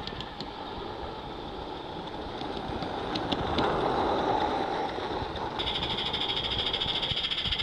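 Small live-steam garden-railway locomotives running past on the track, a noisy steam hiss with a few light clicks that swells as an engine comes close. About three-quarters of the way through, the sound switches abruptly to a louder, rapid, even pulsing hiss.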